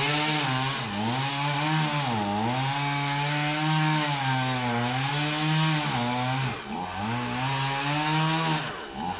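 Chainsaw running under load as it cuts into a coconut palm trunk, its engine pitch sagging and recovering again and again as the chain bites, then dropping away near the end.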